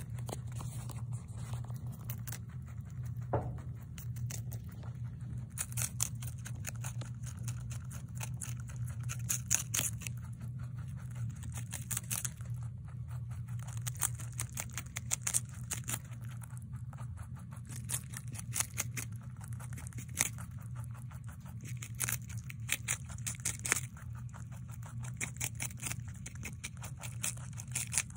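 Holland lop rabbit crunching and tearing at a crisp lettuce leaf, a rapid run of small crunching bites. A steady low hum runs underneath.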